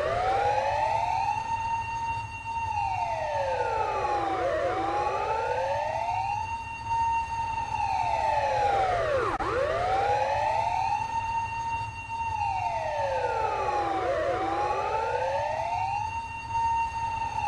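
Ambulance siren sounding a slow wail, its pitch rising, holding high and falling again over several seconds in a repeating cycle, with overlapping sweeps, over a steady low rumble.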